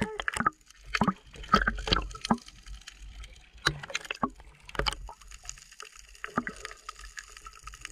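Water splashing and sloshing in irregular strokes, about a dozen over a few seconds.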